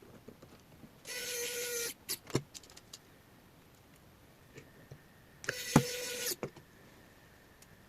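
Small electric screwdriver driving M2 screws into a 3D-printed plastic plate: two short runs of just under a second each, about four seconds apart, each followed by light clicks and taps.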